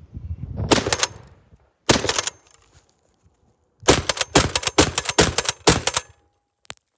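Sero GM6 Lynx .50 BMG semi-automatic bullpup rifle firing: two single shots about a second apart, then a quick string of shots over about two seconds.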